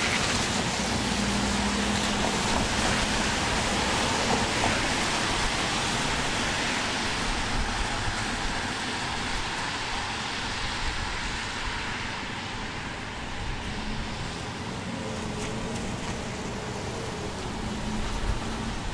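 Steady hiss of a heavy summer downpour mixed with the swish of cars on a wet road, easing a little in the second half.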